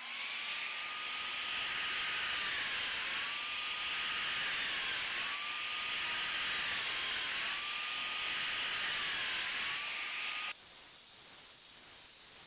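Festool Domino joiner running over the hiss of its dust extractor, the motor whine dipping in pitch four times about two seconds apart as it plunges into plywood to cut mortises. About ten seconds in it turns quieter and higher, still dipping in quicker succession.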